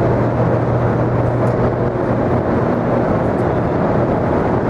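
Hoover Dam's hydroelectric generators running in the power plant's generator hall: a steady machine drone with a constant low hum.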